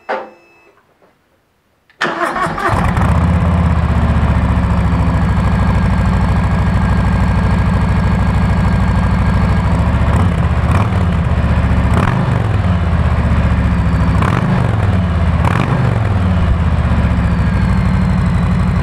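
A 2020 Harley-Davidson Street Bob's Milwaukee-Eight 107 V-twin, on its stock exhaust, starts about two seconds in and idles. Several quick throttle blips come in the second half.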